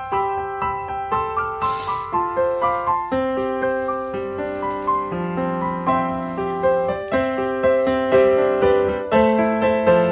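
Background piano music: a slow melody of struck notes over lower held notes.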